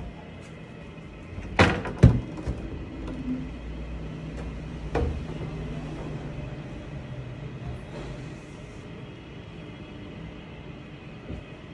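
Pull-out shop display panels hung with cabinet handles sliding on their tracks: two sharp knocks about two seconds in, another about five seconds in, and a steady low rumble of a panel rolling between them that fades out.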